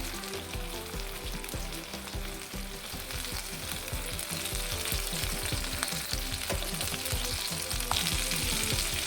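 Marinated chicken drumsticks sizzling in oil in a frying pan, growing slightly louder, with a few light clicks as the pieces are turned.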